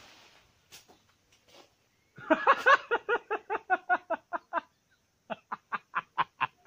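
A man laughing hard in quick repeated 'ha-ha-ha' pulses, starting about two seconds in: a fast run first, then after a short break a slower, evenly spaced run of laughs.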